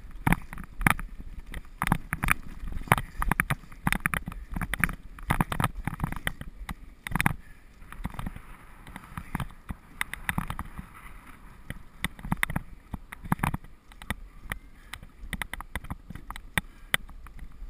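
Dog sled pulled by two huskies running over snow: a steady low rumble from the runners, with frequent irregular knocks and rattles as the sled jolts over bumps.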